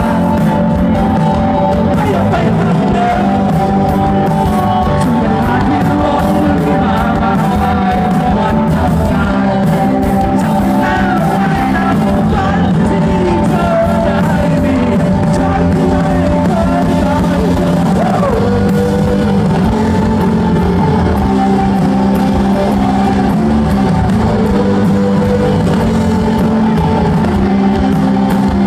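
Live rock band playing at full volume with a singer, heard from among the audience: electric guitars, bass and drums under the sung melody.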